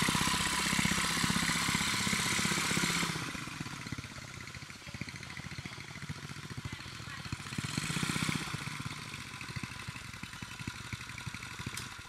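Small motorcycle engine running, with a loud hissing rush over it for the first three seconds and a swell in level about eight seconds in.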